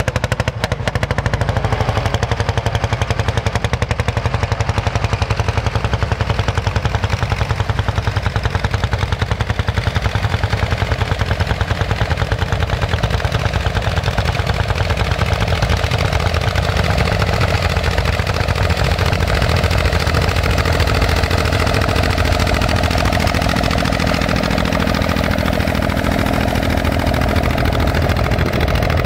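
Hanomag R27 tractor's diesel engine running steadily under load, a rapid, even knocking beat, as it pulls a cultivator through the soil.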